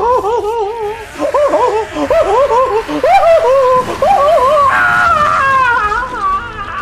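A man screaming loudly in long, wavering cries, the pitch jumping up and down in quick repeated arcs. The cries grow stronger after about four seconds.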